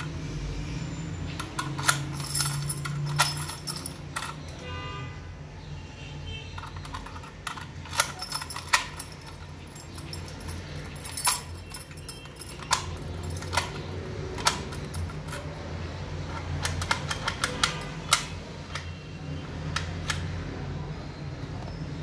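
Metallic clicks and clacks of a brass key turning in an IHS Kilit rim gate lock as its bolts are thrown and drawn back, with keys jangling against the lock body; the clicks come irregularly, some in quick runs, over a steady low hum.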